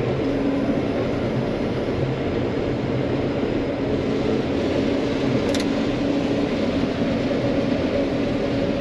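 John Deere 9500 combine running steadily while harvesting corn, heard from inside the cab as an even mechanical drone with a steady low hum.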